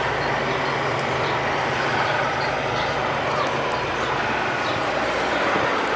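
City street traffic, with engines running in a steady low hum.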